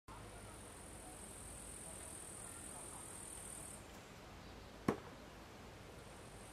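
A single sharp knock about five seconds in as a thrown steel shuriken strikes wood. Behind it runs a steady high-pitched chirring of insects, which pauses for a couple of seconds around the throw.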